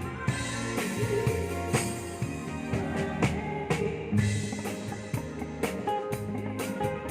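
Live band playing: a drum kit keeps time with kick and snare strokes under held bass and guitar notes.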